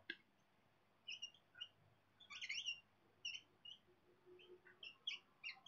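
A marker faintly squeaking on a whiteboard in short, irregular strokes as words are written.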